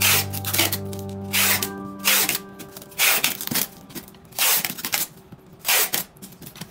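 Packing tape pulled off a handheld tape dispenser and pressed onto a parcel: a series of short, loud rasping rips, one every half second to a second. Background music plays underneath.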